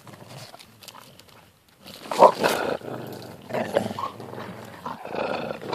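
A dog grumbling and growling in a string of short, rough bursts, starting about two seconds in, the first the loudest.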